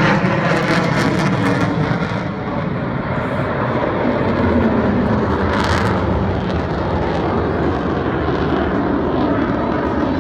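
Jet noise from an RAF Eurofighter Typhoon's twin turbofan engines: a loud, steady rushing rumble that holds throughout, with some crackle in the first couple of seconds.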